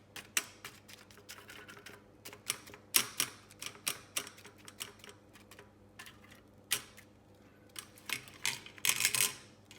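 Irregular sharp clicks and light knocks of kitchenware as cooked chicken pieces are lifted out of a Ninja Foodi air fryer basket, with a busier clatter near the end.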